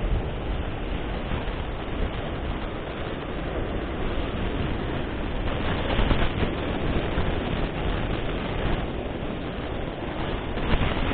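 Wind rumbling on the microphone over the steady wash of ocean surf, swelling briefly about six seconds in and again near the end.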